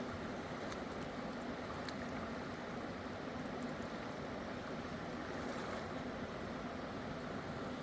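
Steady rushing of a fast-flowing river, with a few faint clicks.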